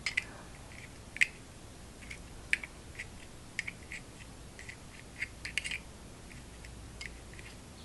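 A metal staple remover clicking and scraping against the metal Zippo lighter insert as the cotton packing is picked out. It makes a string of small, sharp, irregular clicks.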